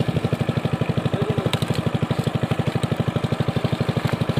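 Engine running steadily with an even, rapid chugging beat of about twelve pulses a second.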